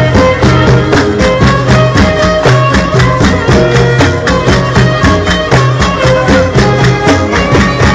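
Traditional folk music of the Touat region of southern Algeria, played by a group: a fast, steady percussive beat with held melodic notes over it.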